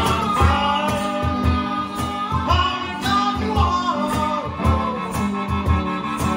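Live blues band playing: a man singing over a strummed semi-hollow electric guitar and a harmonica, with a cajón keeping a steady beat of low thumps.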